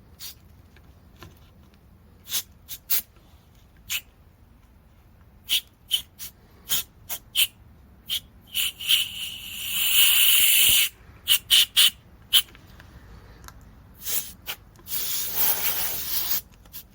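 Short hissing bursts from a pressurised spray nozzle, about a dozen quick puffs with two longer blasts of a second or more, one near the middle and one near the end.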